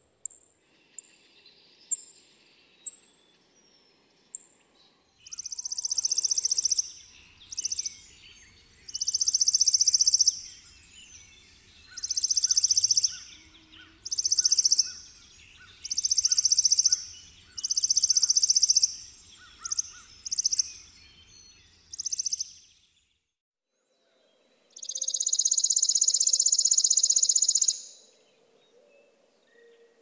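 Chipping sparrow singing: first a run of short, high chips, then a string of dry, rapid trills about a second long, repeated every couple of seconds, and one longer trill near the end.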